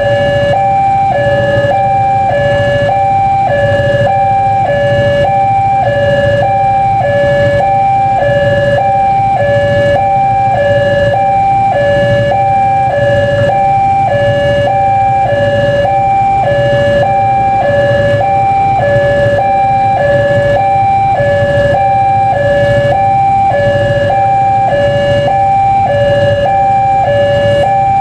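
Electronic level-crossing warning alarm sounding continuously, switching back and forth between two pitches about every half second, warning that a train is approaching. A low steady rumble runs underneath.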